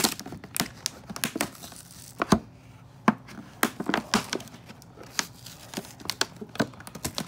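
Clear plastic window packaging of a doll box crinkling and crackling as it is handled and pulled open, with taped plastic tearing loose. There are sharp snaps throughout, the loudest about two and a half seconds in and just after three seconds.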